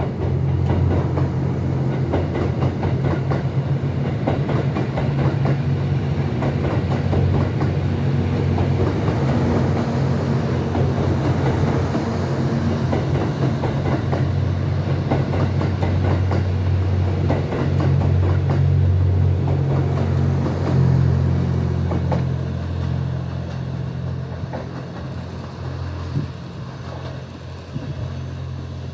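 Diesel train running past, its wheels clicking over the rail joints over a steady engine hum; the sound eases off over the last few seconds.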